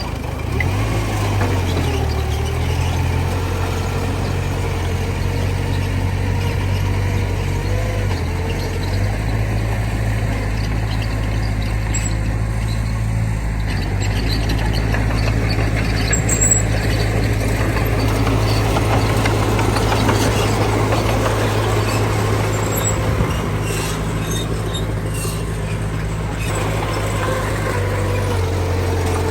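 Heavy diesel earthmoving machinery running, the engine note stepping up and down in speed several times as it works, with a few short sharp clicks midway.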